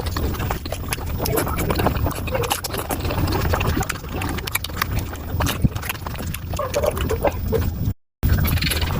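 Close-miked wet chewing and lip-smacking of someone eating pork momos, a dense run of small moist clicks and squelches. The sound drops out briefly about eight seconds in.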